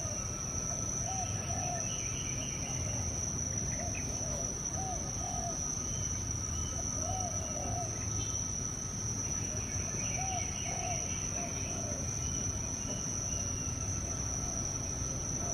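Tropical outdoor ambience: a steady high-pitched insect drone from crickets or cicadas, while a bird repeats short paired low hooting notes every couple of seconds and other birds chirp higher up.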